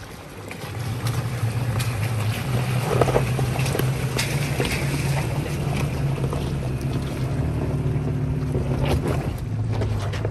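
Off-road 4x4 vehicle engine running steadily at low revs, with scattered knocks and rattles over it.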